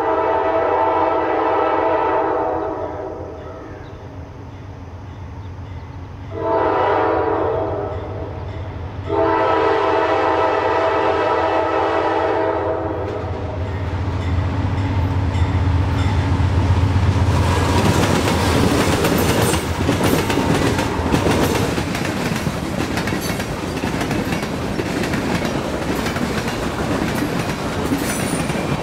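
Freight train led by three GE C40-8 diesel locomotives sounding its multi-chime air horn for a grade crossing: a long blast, a shorter one, then a long one of about four seconds. The locomotives' diesel engines rumble louder as they pass, and then the boxcars rattle and clatter by with steady clicking of wheels over the rail joints.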